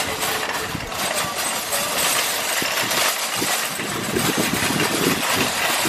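A car driving: a steady rush of road and wind noise with a low engine rumble underneath.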